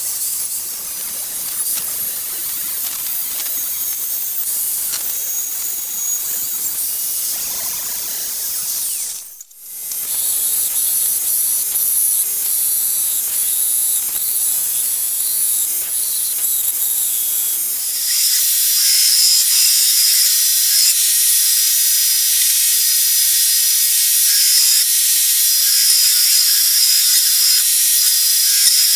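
Belt grinder with an abrasive belt grinding a steel knife blank cut from a truck leaf spring: a loud, steady, hissing grind of belt on steel. It breaks off briefly about nine seconds in, and a little past halfway the grind turns louder and steadier, with a whine in it.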